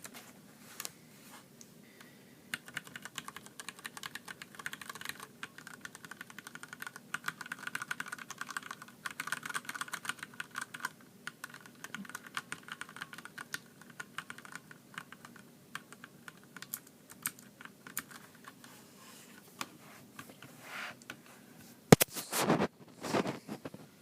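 Cherry MX mechanical key switches on a switch tester being typed on: quick, irregular key clicks. A few louder knocks come near the end.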